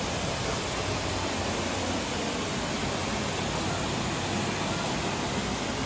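A tall waterfall pouring off a cliff, heard as a steady, even rush.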